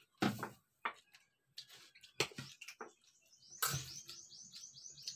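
Spoon clicking and scraping on a plate, with chewing, as a meal of rice and chicken is eaten. From about three and a half seconds in, a bird chirps rapidly, about five short high chirps a second.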